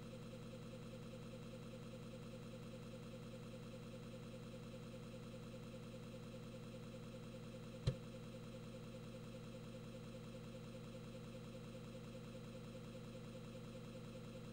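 Emulated floppy disk drive running with a faint steady hum, with a single sharp click, a head step, about eight seconds in.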